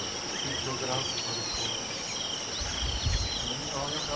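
Insects calling: a steady high-pitched drone with a pulsing chirp about twice a second. Bird whistles come and go over it, and a brief low rumble sounds about three seconds in.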